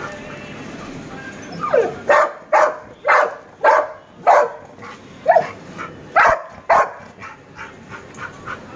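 A large dog barking in a quick series, about two barks a second for some five seconds starting about two seconds in, followed by a few softer barks near the end.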